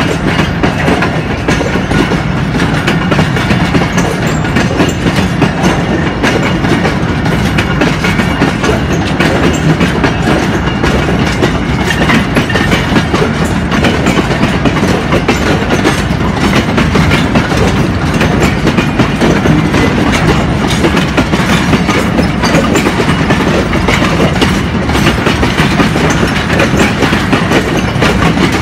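Railway tank wagons of a freight train rolling past close by, their wheels clacking steadily over the rail joints with a continuous rumble.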